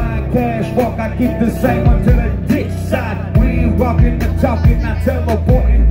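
Loud live band music: drum kit and keyboard with a singer's voice over it.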